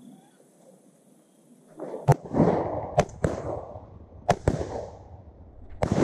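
A volley of about six shotgun shots from two guns within four seconds, some in quick pairs, each followed by a rolling echo through the timber.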